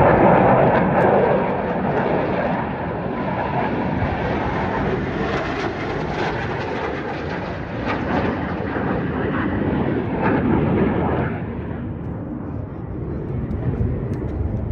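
Blue Angels F/A-18 Super Hornet jets flying by: a loud, steady jet roar, strongest at the start, that thins out and drops about eleven and a half seconds in as the jets pull away.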